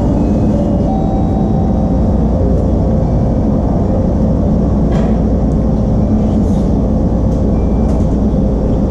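Background music: a steady, dense low bed with scattered faint melodic notes.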